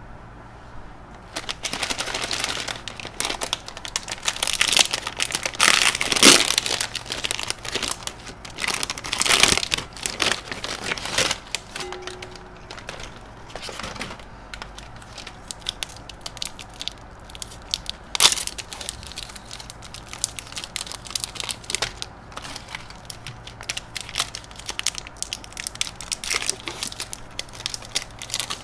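Plastic wafer-bar wrappers crinkling and tearing as a multipack bag is opened and the single bars are unwrapped, in irregular bursts of crackling. It is loudest in the first ten seconds or so, with one sharp crackle a little past the middle.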